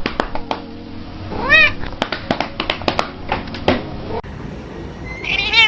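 A cat meowing: one rising-and-falling meow about a second and a half in, a shorter call later and another meow starting near the end, amid scattered clicks and knocks.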